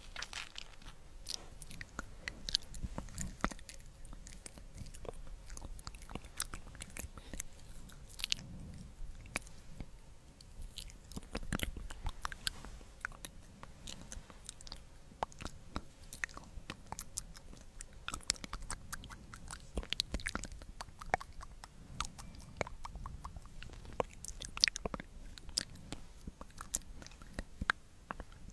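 Close-miked sticky mouth sounds: many irregular, sharp wet clicks and smacks.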